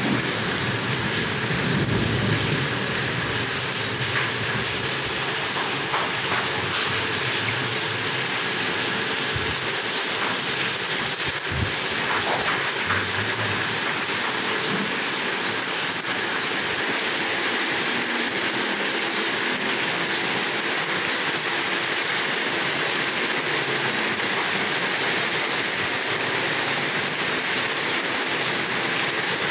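Heavy rain falling on paved ground: a steady, dense hiss of drops splashing on the hard surface.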